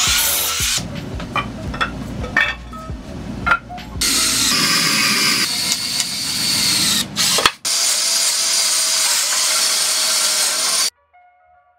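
Power tools on wood in short edited bursts: a DeWalt compound miter saw cutting a board, then a cordless drill running steadily as it drives screws into a pine frame. The sound stops abruptly about a second before the end.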